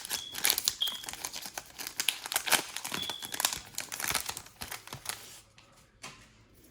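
Foil wrapper of a Pokémon TCG booster pack crinkling and tearing as it is opened, dying away about five seconds in.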